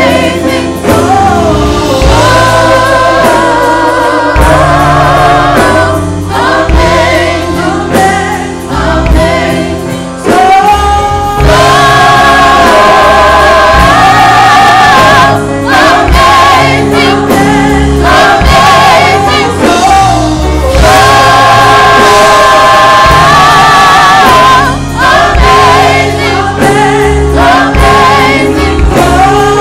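Gospel choir singing held chords over instrumental accompaniment with a steady bass line.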